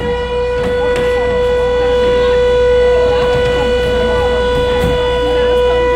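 Fire brigade alarm siren holding one steady, unwavering tone with a row of overtones, sounding a volunteer fire brigade call-out.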